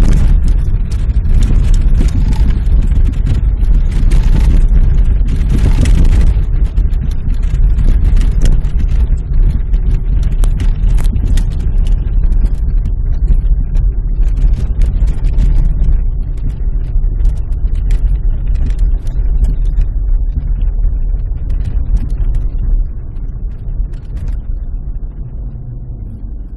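Cabin sound of a Volvo V40 T4 driving over snow-covered lake ice: a loud, steady low rumble of engine and tyres on the snow. It drops noticeably in level near the end as the car eases off.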